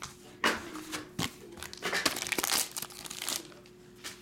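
Plastic wrapping crinkling and tearing as it is pulled off a graded card slab, in a run of short rustles that die down near the end.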